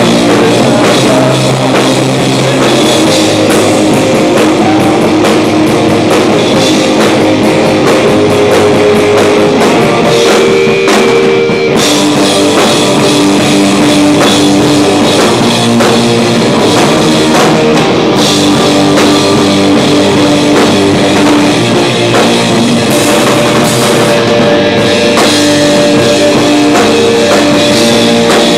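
Live rock band playing loud: electric guitars over a full drum kit, with held notes and no break.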